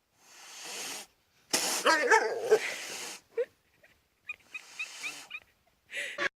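A pet animal whining and crying in short separate spells, the loudest a wavering cry about a second and a half in, followed by a string of short high squeaks.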